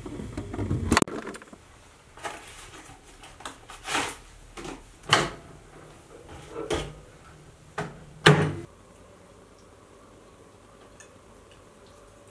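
A plastic food tray being handled and a microwave oven's door opened and shut: a run of clacks and knocks, the loudest about eight seconds in, followed by a faint steady hum.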